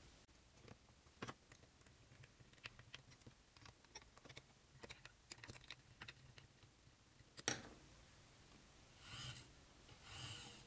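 Faint clicks and taps of small screws and a plastic motor mount being handled and fitted onto a wooden board, with one sharper click about seven and a half seconds in and two short scraping sounds near the end.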